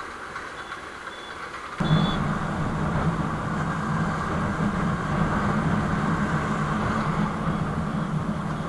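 Motorcycle engine running while riding through traffic, with wind rushing over the microphone; it steps up suddenly and becomes louder about two seconds in, then holds a steady hum.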